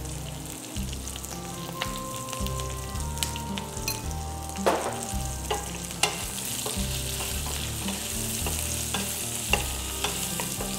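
Chopped onions, garlic and dal sizzling in oil in a steel pan, stirred with a wooden spatula that scrapes and knocks against the pan. The sizzle grows brighter about halfway through.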